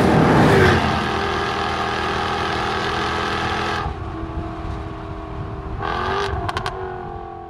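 Jaguar XKR-S's supercharged V8 running hard at a steady pitch on the straight, then falling away sharply about four seconds in. Near the end a short swell with a few sharp cracks, then it fades out.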